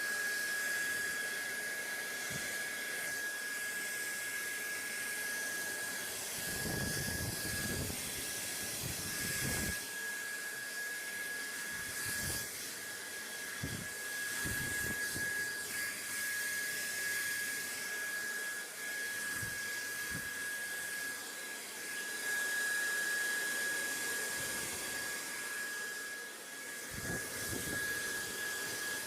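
Steady whooshing white noise with a thin, steady high whine running through it, broken now and then by brief low rumbles.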